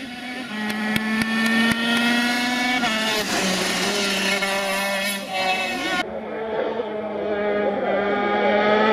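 A KZ125 shifter kart's two-stroke engine at high revs, approaching. Its pitch climbs steadily as it accelerates, with sudden drops about three and six seconds in.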